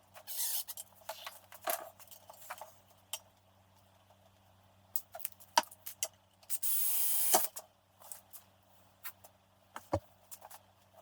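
Scattered light clicks and knocks of tools and metal parts being handled, with one short loud hiss about seven seconds in.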